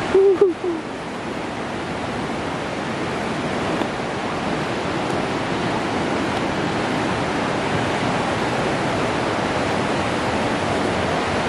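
Steady rush of river water from the granite canyon below. A short voice sound comes right at the start.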